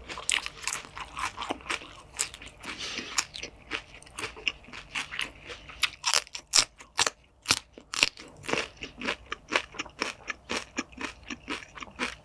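Close-miked, crunchy chewing of a fresh green salad with balsamic dressing and caviar: many quick, irregular crisp crunches.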